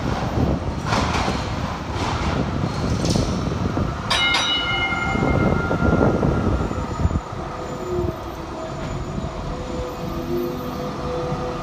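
Melbourne trams rolling along street track at a stop, a continuous rumble of wheels on rails. About four seconds in, a metallic ringing tone starts sharply and fades over a few seconds.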